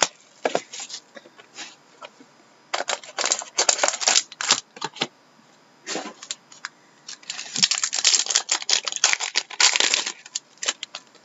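Plastic wrapper of a trading-card pack being torn open and crumpled, heard as bursts of crackling rustle. Cards are handled and slid against one another in between.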